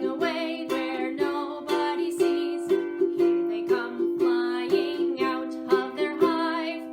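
Ukulele strummed in a steady rhythm, about two strums a second, accompanying a sung children's rhyme.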